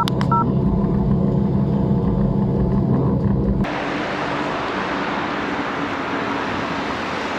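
Steady low engine and road rumble heard from inside a car on a wet road. About three and a half seconds in it gives way abruptly to an even hiss of wind and tyres from a bicycle riding on a wet road.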